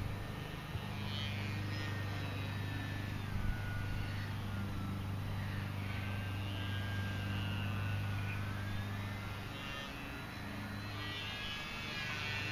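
Distant whine of the electric motor and propeller of a small foam-board RC plane, its pitch drifting slowly up and down as it flies, over a steady low hum.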